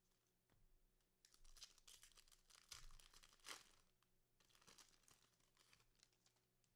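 Faint tearing and crinkling of a trading card pack wrapper being ripped open and handled, in irregular rustling spurts.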